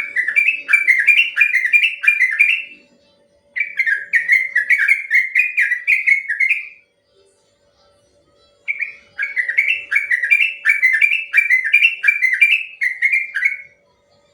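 Yellow-vented bulbul (trucukan) singing its long rolling song: three runs of quick, repeated slurred whistled notes, about three a second, with short pauses between runs.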